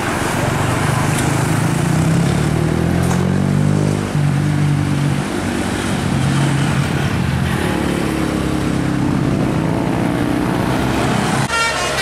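Diesel tour-bus engines running past close by, their engine note shifting as the revs change. Near the end a multi-tone telolet bus horn starts playing a stepping melody.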